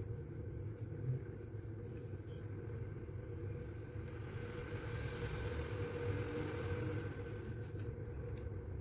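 Steady low rumble of background noise, with a few small clicks. Through the middle comes a faint soft rustle as a soft bread roll is pulled apart by hand.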